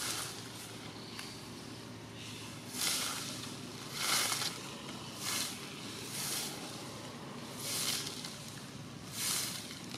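Long-tailed macaque biting and chewing a hard green mango: a series of short crunches, about one every second or so.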